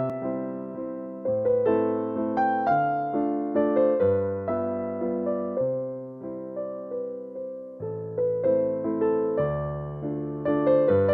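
Background music played on a piano-like keyboard, notes struck one after another and dying away.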